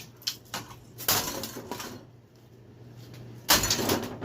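A ceiling fan being smashed apart: a few sharp bangs and knocks in the first two seconds, then a louder, longer crash and clatter near the end.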